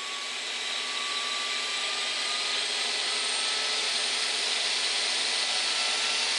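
Kyosho Caliber M24 micro RC helicopter's electric motor and rotors spinning up while it sits on the ground: a steady whirring whine that climbs slowly in pitch and grows louder over the first couple of seconds, then holds.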